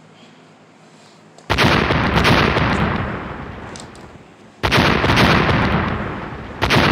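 Three loud gunshot sound effects, each fading out over a couple of seconds. The first comes about one and a half seconds in, the second near the middle, and the third right at the end.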